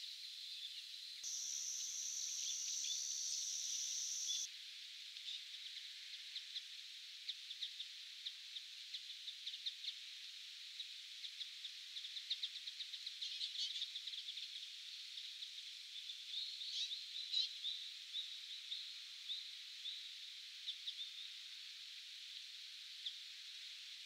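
Bramblings calling: a long, drawn-out wheezy note about a second in that holds for some three seconds, then a run of many short, sharp call notes in quick succession, some bunched together.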